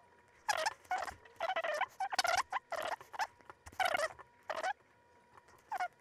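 Stylus scraping across a graphics tablet in a run of short strokes while a character's mouth is drawn, with one more stroke near the end. A faint steady whine runs underneath.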